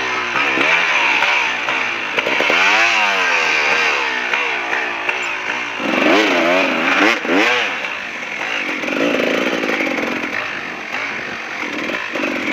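KTM 380cc two-stroke dirt bike engine revving up and down as the throttle is worked, with repeated quick rises and falls in pitch. In the second half it runs at lower, steadier revs.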